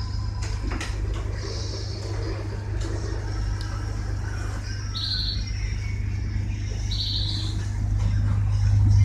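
Tugboat engine droning steadily, growing louder near the end, with a few short high chirps like bird calls over it.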